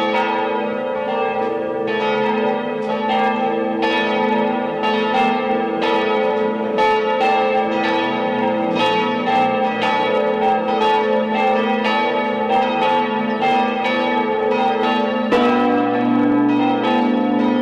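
Full peal of several church bells swinging and ringing together, their strikes overlapping in an uneven, steady stream. About fifteen seconds in, the sound deepens as a lower bell comes in.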